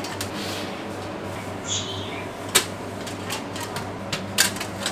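Metal wire trays of steamed buns being slid out of a stainless-steel steaming cabinet, with sharp metal clanks and rattles, the loudest about two and a half seconds in, over a steady low hum.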